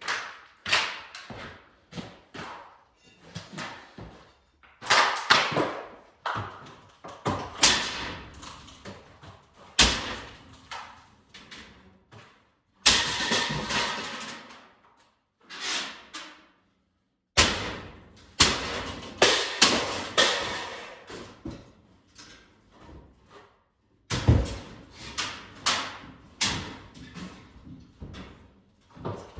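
Fiberboard and its wooden frame being pried and pulled down: irregular knocks and cracks with several longer crashes as pieces break away and fall.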